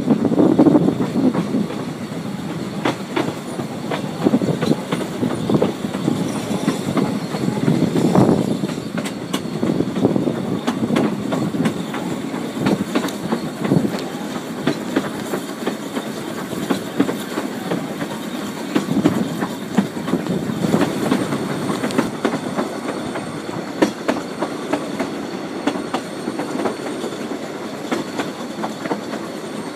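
Narrow-gauge heritage railway carriage running along the track, heard from its window: a steady rumble with repeated clicks as the wheels pass over the rail joints.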